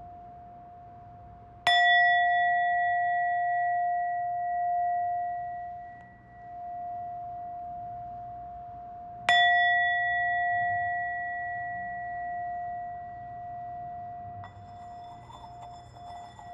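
A bell of the singing-bowl kind, struck twice about seven and a half seconds apart. Each strike rings on in a long, slowly fading hum of a few clear tones. Near the end a second ringing sound with higher, brighter tones joins in.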